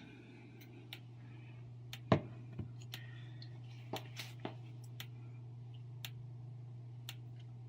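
A steady low hum with a few scattered light clicks and taps; the loudest click comes about two seconds in.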